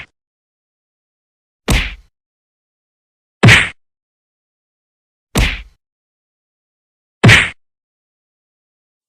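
Punch sound effect played four times, each a short, sharp hit about two seconds apart, with dead silence between.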